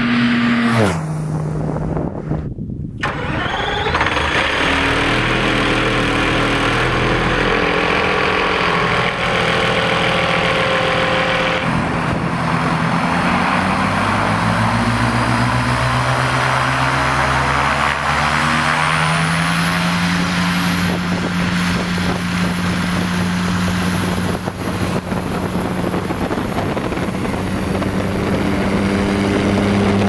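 RED V12 twin-turbo diesel aero engine of an Air Tractor AT-301 crop duster. The plane passes low at the start, its engine note dropping in pitch as it goes by. Then, in separate clips, the engine runs and revs up and down with the propeller turning at close range.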